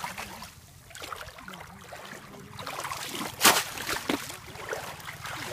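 Shallow water sloshing and splashing as hands work in it at the water's edge, with one sharp splash about three and a half seconds in and a smaller one just after.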